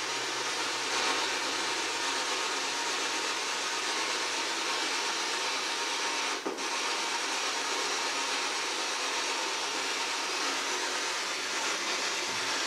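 PSB-7 spirit box, a scanning radio, sweeping through stations and putting out a steady hiss of static that briefly cuts out about six and a half seconds in.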